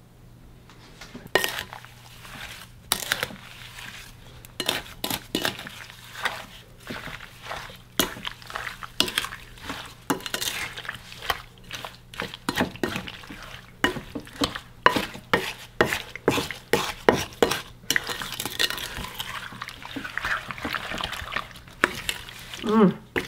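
Chopped plums and sugar being stirred together in a glass mixing bowl: a steady run of irregular clinks and knocks against the glass.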